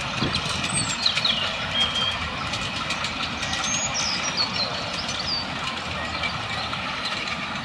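Miniature live-steam locomotive hauling a passenger train past on a ground-level track, running steadily with the clatter of wheels on rails.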